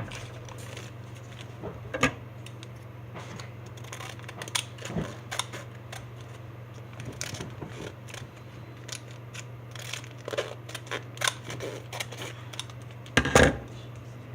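Scattered clicks and rustles of candy packaging being handled and cut open, over a steady low hum, with a louder knock near the end.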